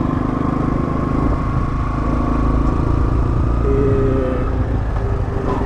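LML Star (Indian-built Vespa PX) scooter engine running steadily while riding, with a continuous low rumble.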